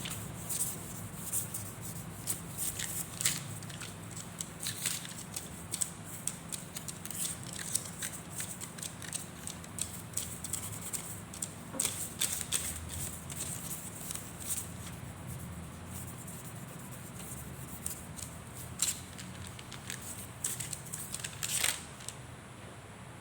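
Irregular small clicks and light taps, several in quick clusters, over a steady low hum.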